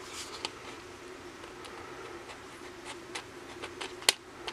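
Light clicks and taps of a hard plastic game-card case being handled as a microSD card is pushed into one of its card slots, with one sharp, louder click about four seconds in.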